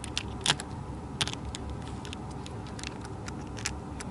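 Small sharp clicks and taps from an N scale model steam locomotive being handled and set onto the track by fingers, plastic and metal wheels knocking on the rails. The clicks come irregularly, loudest about half a second in and again a little over a second in, over a steady low room hum.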